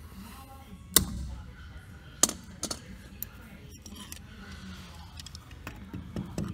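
Cotter pin in an aircraft wheel's axle nut snipped with cutters about a second in, giving one sharp metallic click, followed by a few lighter clicks and clinks of hand tools working the pin.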